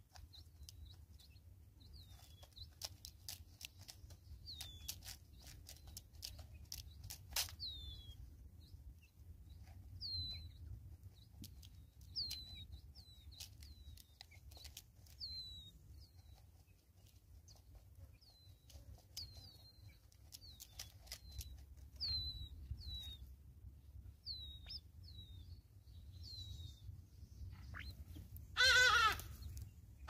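Short, falling high peeps repeated throughout, with sharp taps of beaks pecking grain from a plastic bottle feeder, mostly in the first few seconds. Near the end a Natal spurfowl gives a loud, harsh, wavering cackle, the loudest sound.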